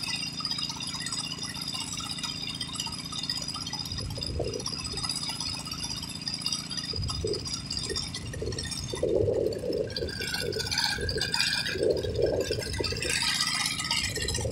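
Water-well drilling rig running steadily, with irregular rattling that grows busier about halfway through.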